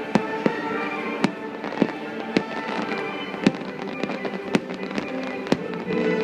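Fireworks bursting in a string of sharp bangs, about two a second, over orchestral show music.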